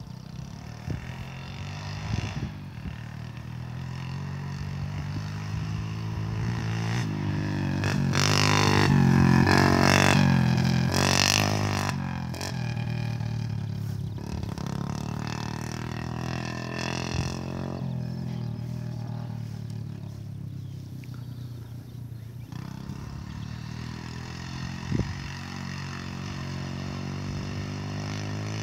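Ride-on lawn mower engine running steadily, swelling louder for a few seconds about a third of the way in, then settling back to a steadier, quieter level.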